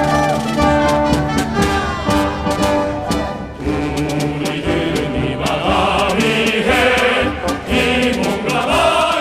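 Orchestral music with brass and choir-like voices. About three and a half seconds in it moves into a fuller, denser passage.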